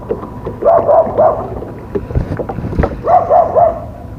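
An animal calling in two quick runs of three or four short calls, about two and a half seconds apart, with two low thuds between the runs.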